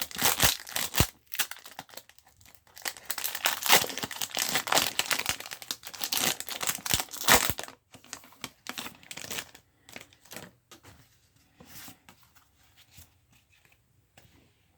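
Foil wrapper of a Pokémon trading card booster pack crinkling and tearing as it is handled, with cards rustling. The crinkling is dense for the first half, then turns into sparser taps and rustles that die away near the end.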